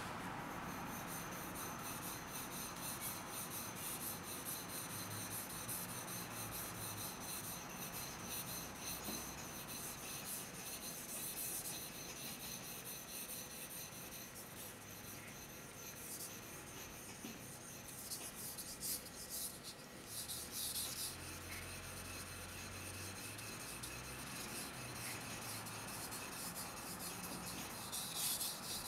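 Steel gyuto blade stroked back and forth on an Okudo suita Japanese natural whetstone: a steady scraping of repeated strokes, with some louder, sharper strokes now and then, most of them near the end.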